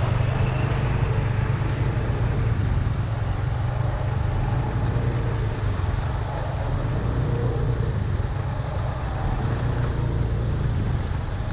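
Steady low rumble with an even hiss: street noise of traffic on a rain-flooded road.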